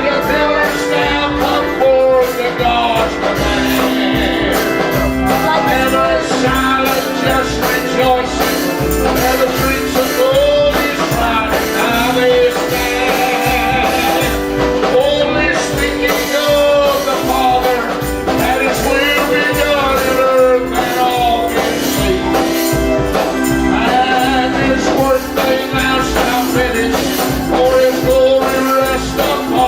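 Gospel music: singing over a full band with a steady, driving beat.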